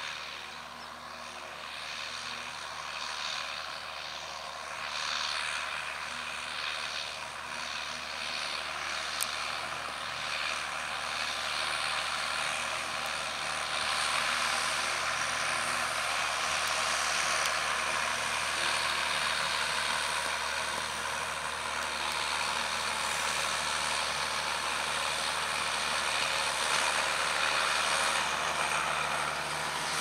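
John Deere 6910 tractor's six-cylinder diesel running steadily while it pulls a Kuhn GF 8712 rotary tedder through hay, the tedder's spinning tines adding a rustling hiss. The sound grows louder about halfway through as the tractor comes closer.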